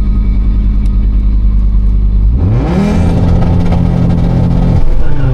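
Fiat Marea's turbocharged 2.4 five-cylinder engine idling, then revved up quickly about two seconds in and held flat against a rev limiter for about two seconds before dropping back near the end. The limiter is holding it at about 5,100 rpm, short of the 5,900 rpm set for the launch.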